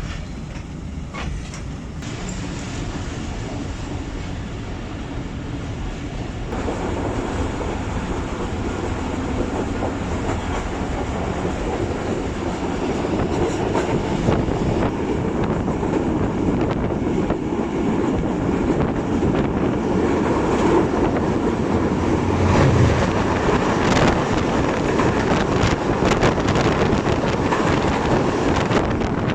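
Passenger train coaches running along the track, wheels clattering over the rails, growing louder about six seconds in, with sharp clicks in the second half.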